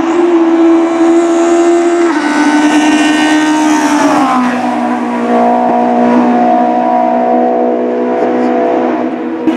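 Honda S2000 F20 four-cylinder engine in a lightweight Honda CRX hillclimb car, revving high as the car passes close by. Its pitch drops about four seconds in as it goes past, then holds steady as it pulls away.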